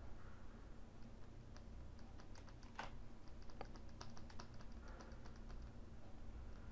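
Faint, irregular clicking of computer keyboard keys, several clicks a second through the middle stretch, over a low steady hum.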